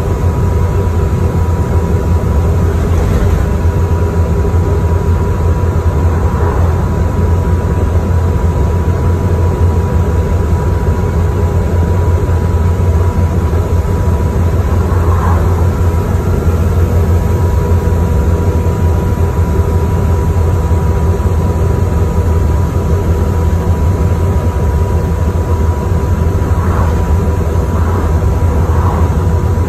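Moving bus heard from inside the passenger cabin: a steady low engine and road drone with a constant high whine, and a few faint rattles from the bodywork.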